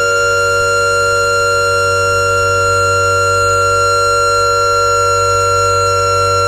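Electric air-raid siren sounding a loud, steady held tone that neither rises nor falls, over a low hum.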